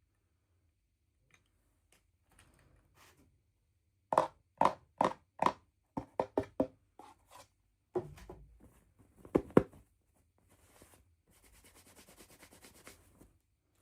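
Handling of small plastic toys and packaging. Four sharp knocks about four seconds in, a quick flurry of small clicks, a thump, two louder knocks, then a fast scratchy rustle near the end.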